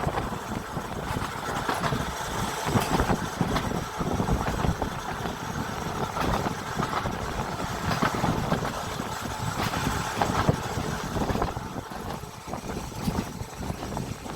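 Seaton Tramway tram running along its track: a continuous rumble with irregular knocks and clicks.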